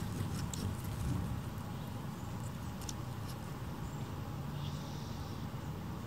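A few short, high hummingbird chip notes, about half a second in and twice around the middle, over a steady low rumble.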